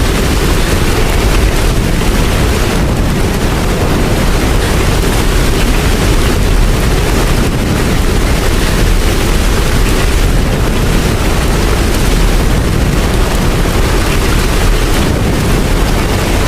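Steady heavy rain, a dense even hiss over a deep low rumble, with no let-up.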